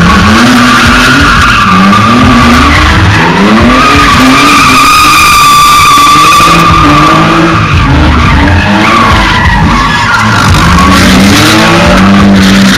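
Car engine revving up and down over and over while the tyres squeal without a break as it spins donuts in tyre smoke. The squeal is loudest around the middle.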